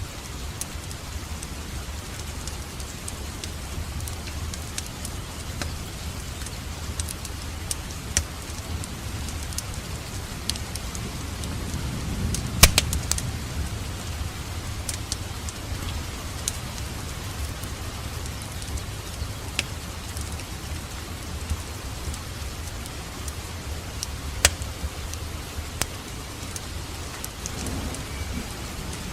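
Wood fire crackling in a fireplace: a steady hiss with scattered sharp pops, the loudest about twelve seconds in and another strong one near twenty-four seconds.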